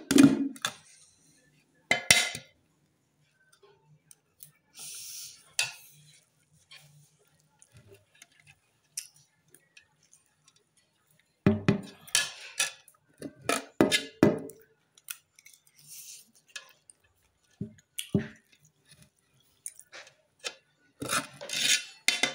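A metal spoon clinking and scraping against a large aluminium cooking pot as leftover rice is scooped out, with chewing in between, in irregular short bursts.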